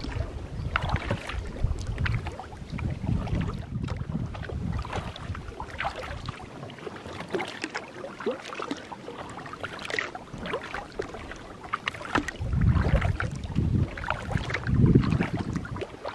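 Kayak paddling on choppy water: water splashing and dripping off the paddle blades and lapping at the hull in many small irregular splashes. Gusts of wind buffet the microphone near the start and again about three-quarters of the way through, the loudest part.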